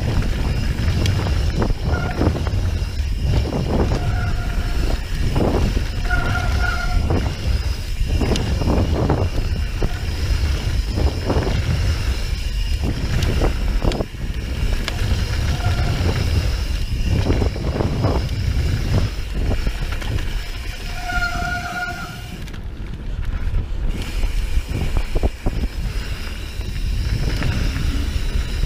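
Mountain bike rolling fast down a dirt trail, with a steady rumble of tyres and wind buffeting the camera microphone. Its disc brakes give several short squeals as they are dragged, a sign of worn brake pads in the rider's view.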